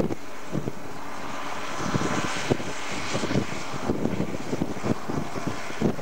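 Distant tractor engine droning steadily under load as it pulls an eight-furrow semi-mounted plough, with wind buffeting the microphone in irregular low thumps.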